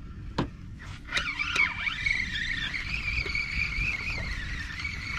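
Spinning reel whirring steadily as its handle is cranked to reel in a hooked fish, after a sharp click about half a second in.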